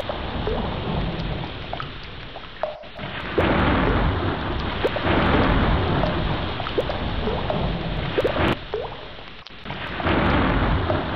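Heavy rain with rolling thunder: the rumble swells and eases a few times, strongest from about three seconds in to past the middle, and briefly drops away near the end before swelling again. Scattered drops sound through the downpour.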